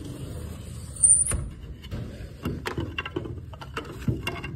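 Sliding glass patio door pushed shut, with a brief high squeal and a loud thud about a second in, followed by several lighter knocks and clicks as it is locked and a wooden security bar is laid in its track.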